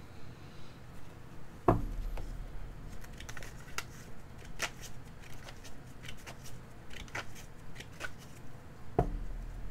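Tarot cards being handled: a card drawn from the deck and laid down on a cloth-covered table, with many light card clicks and snaps. Two dull knocks, about two seconds in and near the end, are the loudest sounds.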